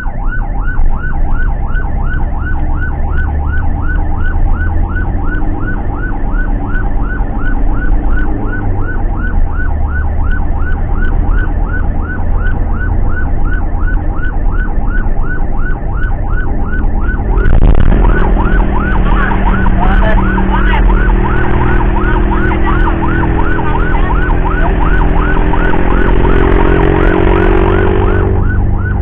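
Ambulance siren on a yelp setting, heard from inside the cab: a fast rising-and-falling wail about four times a second, over the van's engine and road rumble. About two-thirds through, a louder, rougher noise joins and the engine note climbs, then it drops away just before the end.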